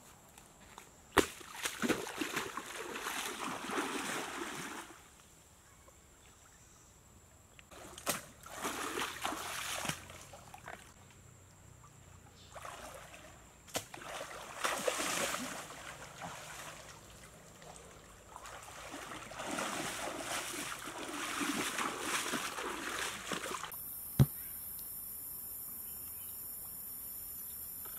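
Water splashing and sloshing as a person wades through a shallow stream, in four bursts with quiet gaps between, plus a few sharp knocks. Near the end the splashing stops and a steady high hiss takes over.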